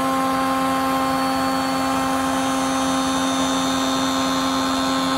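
Acrylic edge polishing machine running: its motor-driven polishing wheel spins with a steady, unchanging hum and whine as the head travels along a clamped acrylic edge.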